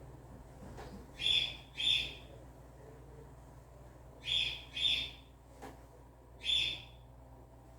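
A bird calling: two short calls in quick succession, another pair a few seconds later, then a single call near the end.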